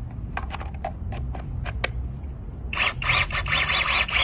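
Several sharp plastic clicks from handling the Seesii 8-inch brushless cordless mini chainsaw, then the chainsaw started with a trigger pull, its chain running for about a second and a half before it stops near the end.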